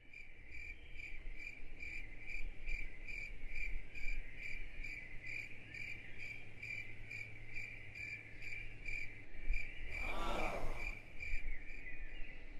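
Crickets chirping in an even rhythm, about three chirps a second, over a low cabin hum. About ten seconds in there is a brief rushing sweep, and the hum drops out.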